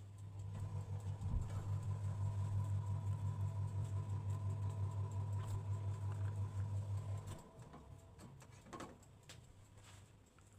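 Microwave oven running with a steady electric hum for about seven seconds, then cutting off suddenly.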